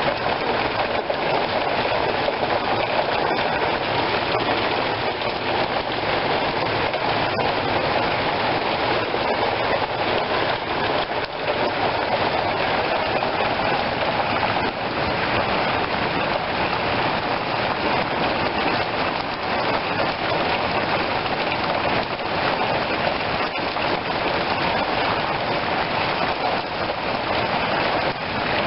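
Steady rain falling, with an occasional sharp tap.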